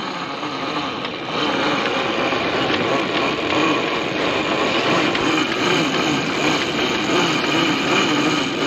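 Steady rushing noise aboard a sailboat under way, with the auxiliary engine running beneath it; the noise gets louder about a second in.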